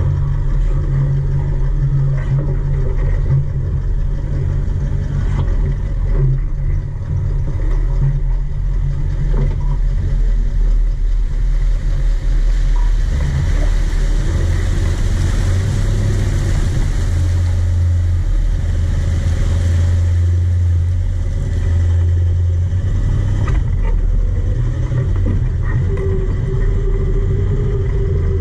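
A four-wheel-drive vehicle's engine labouring at low speed on a rough off-road track. Its low note holds steady, then shifts as the revs change about a third and two-thirds of the way through, with a rushing noise swelling in the middle.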